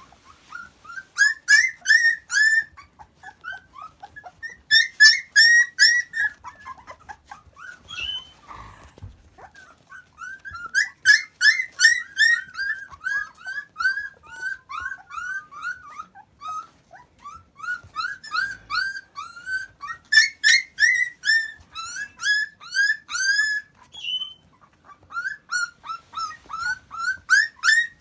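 A litter of Akita puppies whining and squealing from hunger: many short, high-pitched cries overlapping several times a second, in bouts with brief pauses between them.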